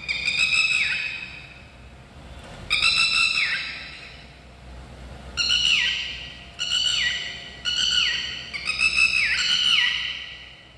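Recorded calls of a red-wattled lapwing played through an exhibit's speaker: a series of loud, sharp calls, each ending in a falling note, coming faster, about once a second, in the second half.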